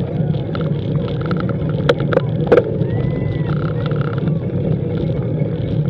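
Roadside spectators cheering and whooping at a passing hill-climb cyclist, with a few sharp clacks around two seconds in, over a steady low rumble.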